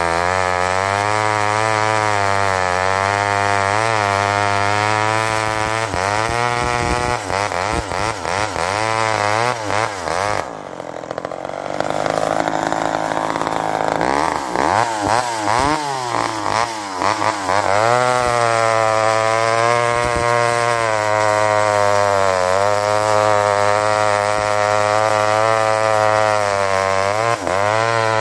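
McCulloch 10-10 Automatic two-stroke chainsaw running at high revs while cutting through a fallen log, its pitch wavering up and down as the chain loads in the wood. About ten seconds in it briefly drops off, then revs back up into the cut.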